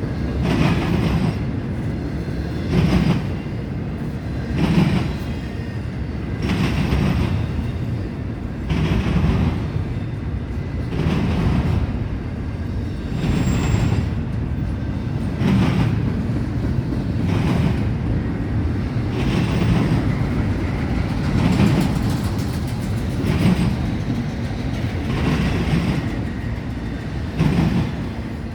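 Freight cars of a CSX intermodal train rolling past with a steady rumble. The wheels clack over rail joints in a regular rhythm, about one clack every two seconds.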